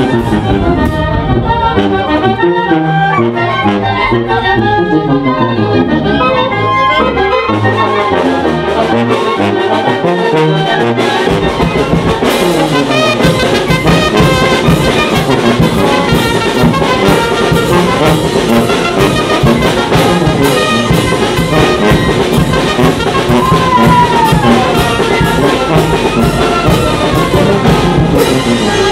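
A banda filarmónica wind band playing: clarinets, saxophones, trumpets and sousaphone. About eleven seconds in, the drums come in with a steady beat under the full band.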